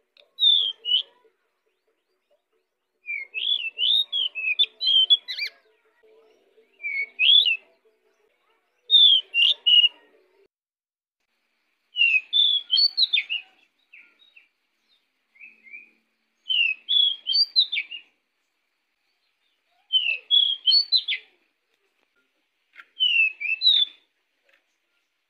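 Pied bushchat (decu) singing: about eight short, fast phrases of high whistled, warbling notes, each a second or two long, separated by pauses of a second or two.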